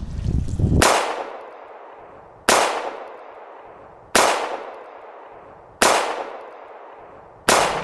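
Edited-in impact sound effect struck five times, evenly about a second and a half apart. Each is a sharp, clanging hit whose ringing tail fades out before the next one.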